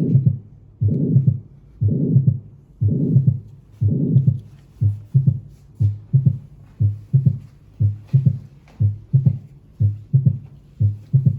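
Recorded heart sounds from an auscultation teaching recording. For about the first four seconds, long drawn-out beats come about once a second, each filled with a murmur. Then the recording changes to shorter, sharper beats in a quicker rhythm.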